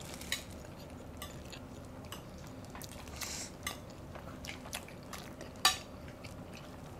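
Quiet mealtime sounds at a table: scattered light clinks and taps of plates and cutlery, the sharpest clink about five and a half seconds in.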